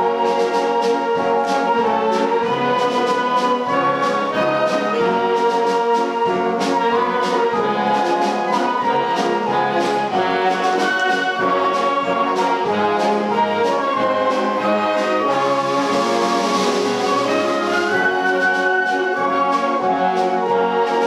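Concert band playing a march, with brass leading over clarinets and woodwinds and a steady, even beat.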